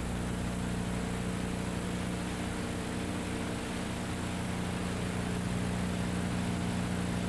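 Steady low drone: a constant hum made of several held low tones over an even hiss, with no change in pitch or level.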